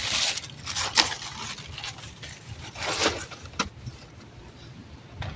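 Cases of bottled water being shifted and set down in an SUV's cargo area: plastic wrap rustling, with a sharp knock about a second in and another a little after three seconds.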